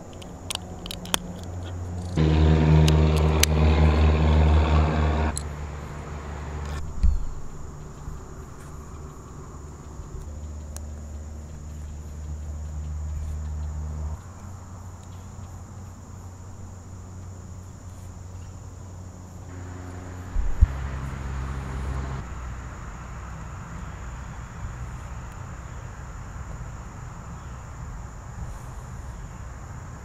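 A motor vehicle's engine is heard, loudest for about three seconds from two seconds in, with fainter low engine hum later over outdoor background noise. A few small sharp clicks in the first second are plastic bricks being pressed together.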